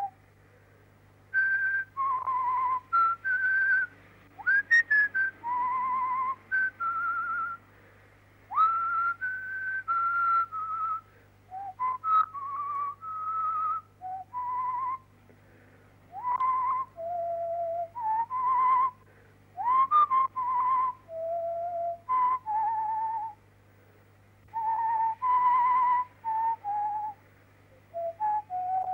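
A person whistling a tune, one clear note at a time in short phrases with brief pauses, some notes sliding up into pitch. A faint steady hum runs underneath.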